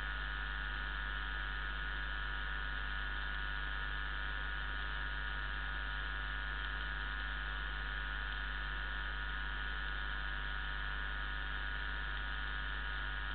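Channel balance test signal from a stereo test record played through a loudspeaker: a steady, unchanging band of hiss-like noise, strongest in the upper midrange, over a continuous low hum.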